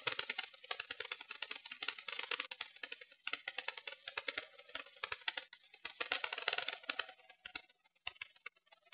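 Faint, irregular clicking and crackling on board an RC electric glider in flight with its motor off, the clicks thinning out near the end.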